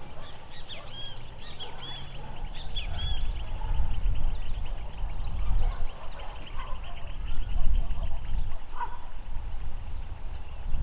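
Wind buffeting the microphone in a low rumble, under birds calling repeatedly in short, arched high notes and a dense chatter of small calls.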